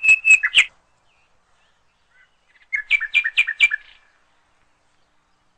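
A bird chirping: a quick run of sharp, evenly repeated notes right at the start, then after about two seconds of quiet another run of about five notes.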